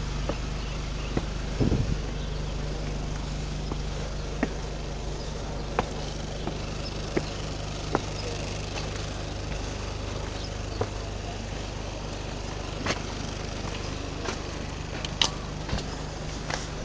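Footsteps of a person walking, sharp taps every second or so, over a steady low rumble.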